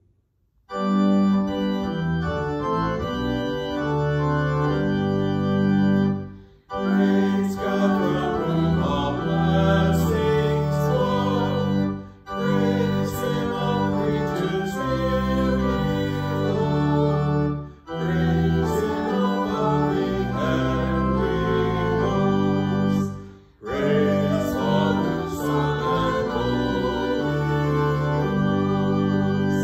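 Organ music: sustained chords over a low bass, played in phrases that lift off briefly about every six seconds. It starts just under a second in.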